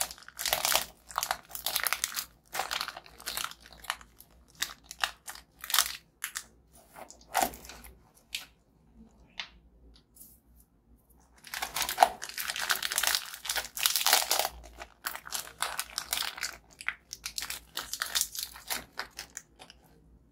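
Crinkling and tearing of plastic biscuit wrappers mixed with biscuits crunching, in two long spells of dense crackling with a quiet gap of a few seconds between them.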